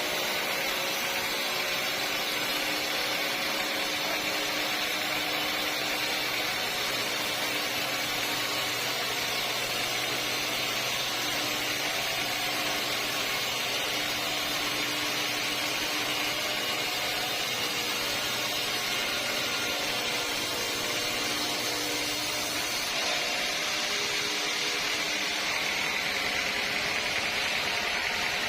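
Sawmill machinery running with a steady, even hiss and a faint hum. The low hum drops away and the sound changes slightly near the end.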